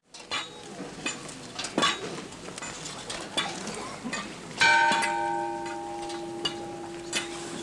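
Scattered clicks and knocks, then a bell struck once about halfway through, ringing on with a clear, slowly fading tone.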